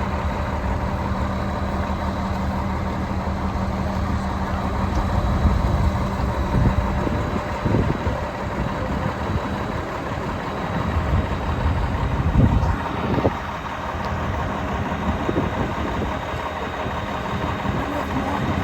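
A large vehicle engine running steadily at idle, with a few short knocks or clunks over it about halfway through.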